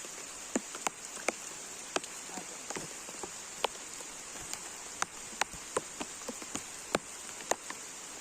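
Rain falling, with single drops tapping sharply at irregular intervals over a steady high hiss.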